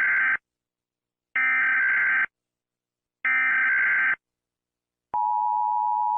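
Emergency Alert System header tones: three identical bursts of screeching digital SAME data about a second apart, then the steady two-tone EAS attention signal starting about five seconds in.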